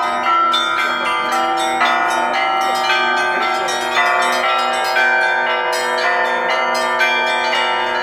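A set of hanging bells of graded sizes rung by hand-pulled ropes tied to their clappers, in traditional Russian style. Several strikes a second overlap into a continuous, many-toned peal.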